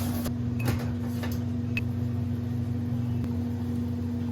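Steady low mechanical hum, with a few faint light clicks over it.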